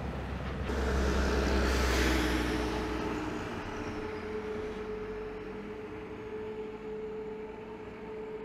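City bus running: engine rumble and a steady hum, with a surge of hiss that starts suddenly about a second in and fades over the next few seconds.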